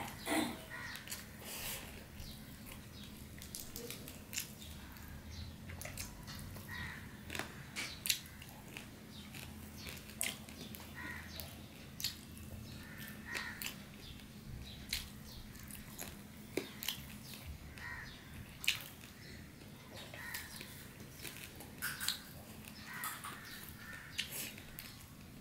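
Close-up eating sounds of a person eating rice and curry by hand: chewing, lip smacks and fingers mixing rice on the plate, heard as many short, wet clicks scattered irregularly.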